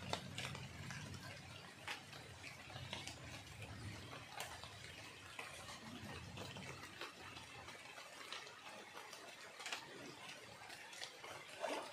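Light rain falling on leaves and on the surface of a flooded river: a faint steady hiss scattered with small drop ticks.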